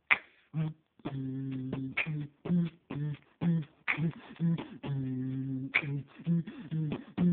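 Beatboxing imitating a DJ's turntable: a rhythmic mouth-made pattern of short and held low hummed tones, cut by a sharp snare-like hit about every two seconds.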